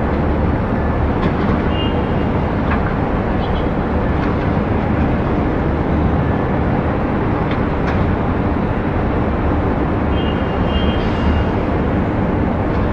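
Distant city traffic: a steady low rumble of many cars and engines, with a few brief faint high tones rising out of it now and then.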